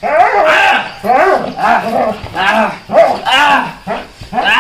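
Belgian Malinois barking repeatedly during bite-sleeve protection work, a string of about five loud barks roughly a second apart.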